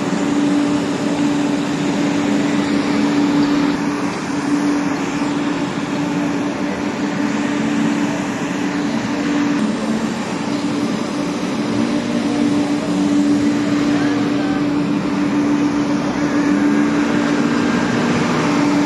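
Scania street sweeper truck at work, its engine and suction fan giving a loud, steady drone with a constant hum while its rotating brushes sweep the cobbles.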